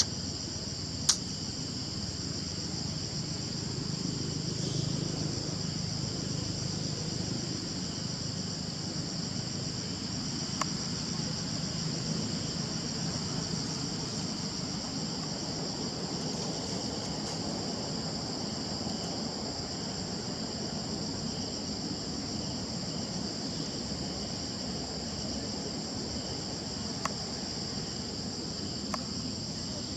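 Steady, high-pitched insect chorus droning without a break, with a few sharp clicks, the loudest about a second in.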